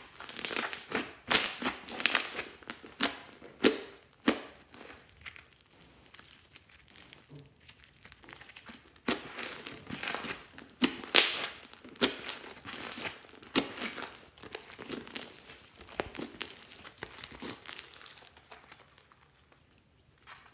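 Hands squeezing and kneading a large mass of thick green slime, which crackles and pops in irregular bursts as trapped air is pressed out. The squishing is busiest in the first few seconds and again in the middle, and thins out near the end.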